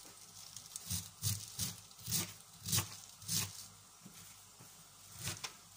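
Kitchen knife chopping white cabbage on a cutting board: a run of about six crunchy chops roughly half a second apart, a pause, then another chop near the end.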